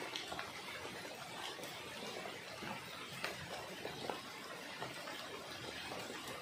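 Steady rain falling, an even hiss with scattered sharp ticks of drops.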